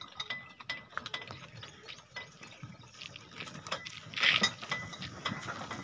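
Bullock cart loaded with paddy straw rolling past: a stream of clicks, clinks and rattles from the cart and harness with a faint ringing tone, and a louder rustling scrape about four seconds in.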